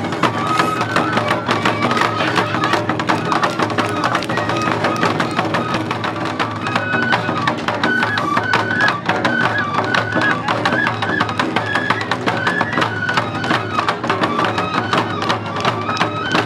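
Japanese festival music accompanying a lion dance: a high, stepping bamboo-flute melody over rapid, steady drum beats.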